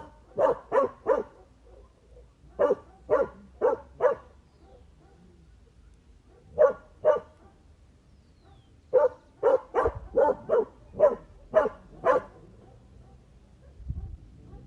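A dog barking in short, sharp barks in bursts: four quick barks, another four, a pair, then a run of about eight, with pauses between the groups.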